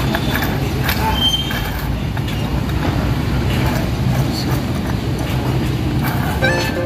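Engine running with a steady low hum, a few faint brief squeaks and clicks over it. Music begins near the end.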